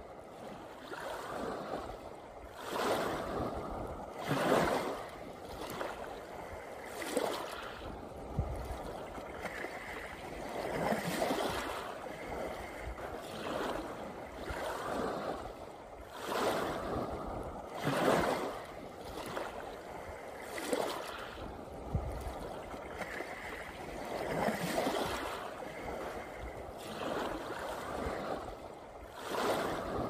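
Small sea waves lapping and washing over shoreline rocks, swelling in soft surges every two to three seconds.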